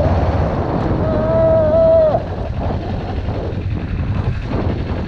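Motorcycle riding along with the engine running and wind buffeting the microphone. About a second in, a high whine sounds for about a second, then cuts off sharply as the overall level drops.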